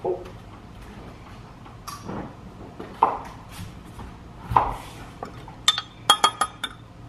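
Spoon knocking and clinking against a glass measuring cup while spooning oil into a sauce: a few soft knocks, then a quick run of ringing clinks near the end.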